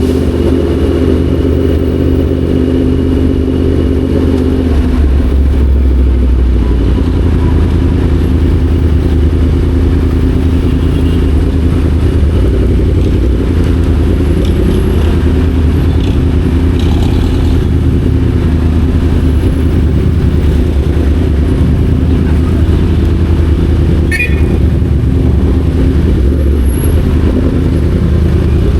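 Yamaha MT-10 SP's crossplane inline-four engine running while the bike is ridden, its pitch shifting a little now and then.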